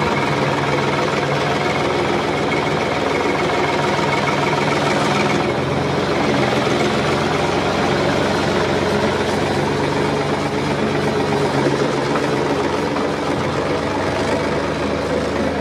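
Engines of heavy farm machinery running steadily under load, with a change in the engine sound about five and a half seconds in and again near the end.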